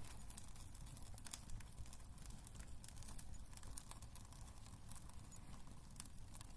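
Wood fire burning in a fireplace, crackling with irregular sharp pops and snaps over a low steady rumble.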